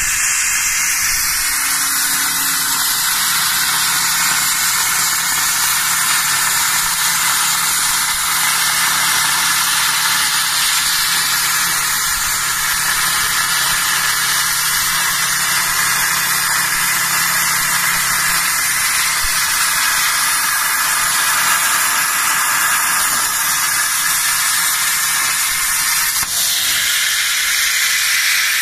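CNC plasma cutter's arc cutting through steel plate: a loud, steady hiss. The sound changes a couple of seconds before the end.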